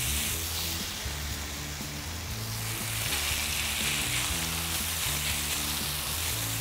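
Shredded raw potato sizzling steadily in hot oil in a frying pan as it is added by the handful, over low background music.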